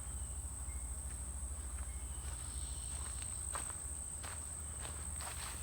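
Steady high-pitched chirring of crickets or other insects, with a few footsteps starting about three and a half seconds in.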